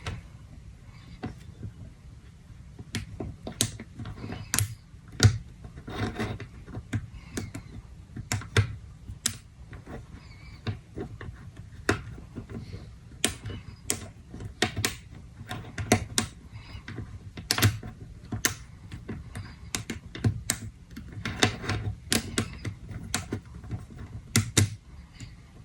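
Plastic links of a Wacky Track fidget toy being twisted and snapped into position, making sharp, irregular clicks, often several in quick succession.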